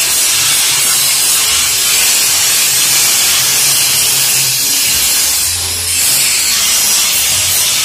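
Angle grinder grinding down a truck bumper, a steady high-pitched hiss. The bumper is being ground smooth in place of sanding, before it is coated in epoxy.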